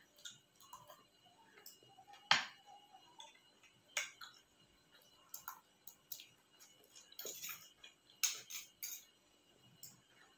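Mukbang eating sounds: a spoon and fork clicking on a plate amid the wet smacks of chewing, in faint irregular clicks, the sharpest about two seconds in and again near eight seconds.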